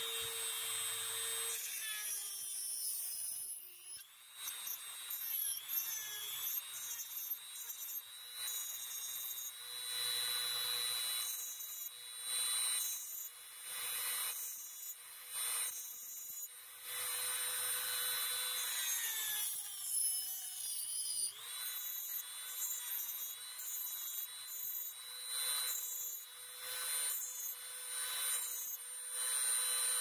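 Dremel rotary tool running at high speed with a steady whine, grinding the plastic mounting ears off a small piezo speaker housing. The whine sags in pitch each time the bit bites in, notably near the start and about two-thirds through, with rasping bursts of cutting between.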